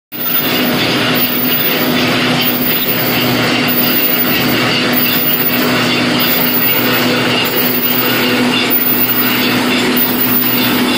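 Non-woven bag printing machine running steadily: a constant mechanical din with a low hum.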